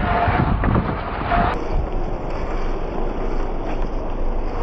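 Traxxas TRX-4 scale RC crawler, with a Hobbywing Quicrun Fusion motor, driving over dirt. Brief electric motor whines sound over gritty tyre noise and wind. About a second and a half in, the sound switches abruptly to a steadier wind-like rush.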